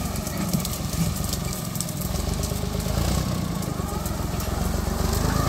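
John Deere tractor's diesel engine running steadily under load while pulling a plough through grassy ground. It grows louder from about two seconds in.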